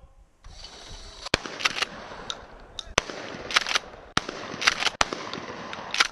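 Gunshots at a shooting range: a run of sharp cracks, about a dozen at irregular intervals, the strongest about a second in, at three seconds and near four and five seconds.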